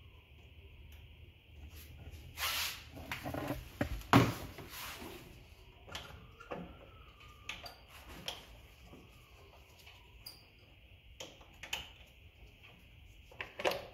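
Scattered knocks, clicks and rustles of hands and a tool working on the cables and terminal nuts of a golf cart solenoid, with a sharp knock about four seconds in the loudest.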